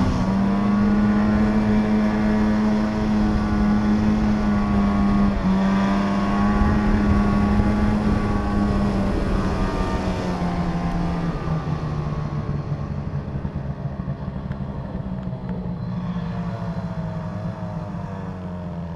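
Snowmobile engine running at a steady pitch, then stepping down in pitch and getting quieter in the second half as the machine slows to a stop.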